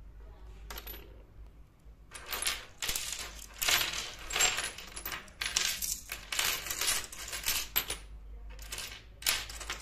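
Miniature ceramic dishes clinking and clattering against one another as a hand sorts through a pile of them: a single clink about a second in, a quick run of many small clinks from about two to eight seconds, then a few more near the end.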